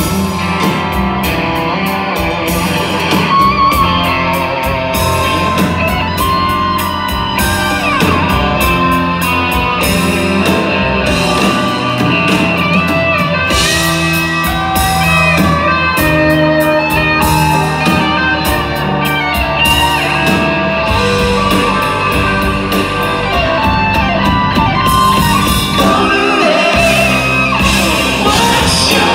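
Live rock band playing, with an electric guitar solo full of bending, sliding notes over drums, bass and keyboards; the lead singer's voice comes back in near the end.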